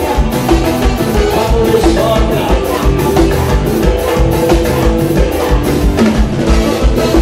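Forró band music with a fast, steady beat.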